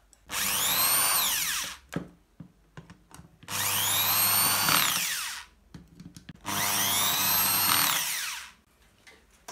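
Cordless drill-driver driving screws to fasten an LED bulb's LED board back into its finned housing: three runs of the motor, each lasting about two seconds, its whine rising in pitch and then falling away at the end of each run. Small clicks come in the pauses between the runs.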